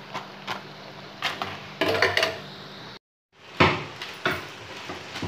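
Metal wire skimmer knocking and scraping against a frying pan while puris are lifted and turned in hot oil, over the sizzle of the oil and a low steady hum. The sound drops out briefly about three seconds in, followed by a loud knock.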